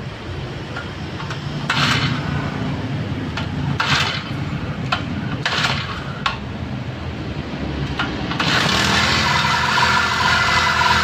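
Small four-stroke engine of a backpack power sprayer running, with a few short louder bursts, then much louder and steady from about eight seconds in as it is revved up.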